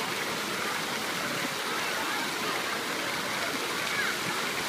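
Busy outdoor pool ambience: a steady rush of splashing and running water, with faint distant children's shouts rising and falling over it.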